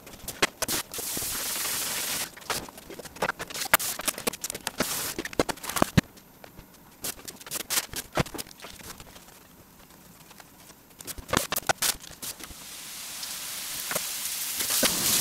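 Kitchen work noise: irregular sharp clicks and knocks of utensils, knife and steel bowls, with stretches of hiss, the last of which swells near the end.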